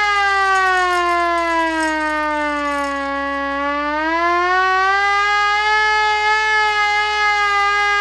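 Hand-cranked handheld air raid siren wailing loudly, its pitch sagging from about a second in to a low around three seconds as the cranking slows, then climbing back and holding steady as the crank speeds up again.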